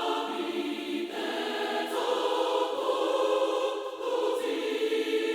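Mixed choir singing held chords over orchestra in D harmonic minor, the chord changing about a second, two seconds and four seconds in. This is the passage where a major triad on the second degree replaces the diminished one as a secondary dominant.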